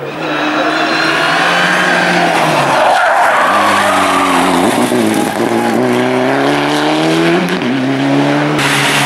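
Rally car engines at high revs, pitch climbing and dropping with several quick gear changes, and tyres squealing as a Mitsubishi Lancer Evolution slides through a tarmac hairpin.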